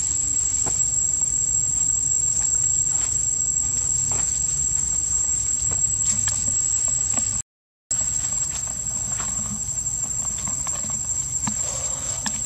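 A steady, high-pitched chorus of insects, with scattered light rustles and scuffs in dry leaf litter as two macaques wrestle on the ground. The sound cuts out completely for about half a second a little past the middle.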